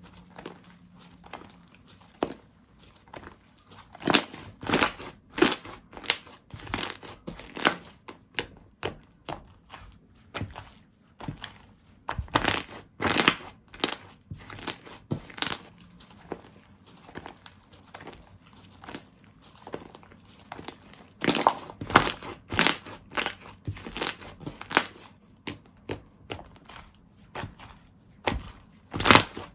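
Slime being squeezed and pressed by hand, giving irregular sharp crackling pops and clicks, some in quick bursts of several.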